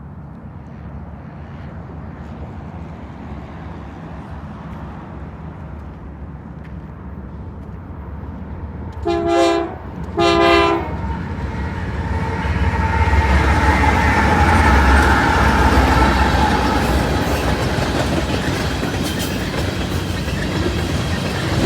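Diesel locomotives of a loaded BNSF coal train, led by a GE ES44AC, approach with a low rumble that grows steadily louder. The lead unit sounds two short horn blasts about nine and ten seconds in. The locomotives then pass loudly, with wheel and rail noise.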